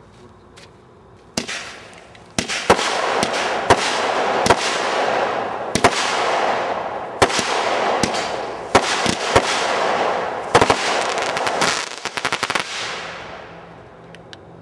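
Consumer fireworks cake firing: a string of sharp reports over a continuous rushing noise. A quick run of crackling comes near the end, then the shots die away.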